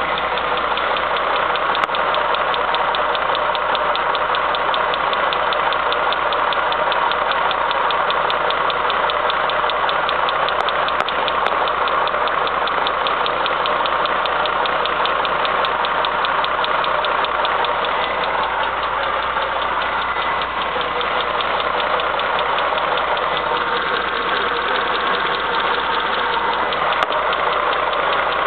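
Audi A8's W12 engine idling steadily with a fast, even knock running through it, the knock ('стук') that the owner is recording.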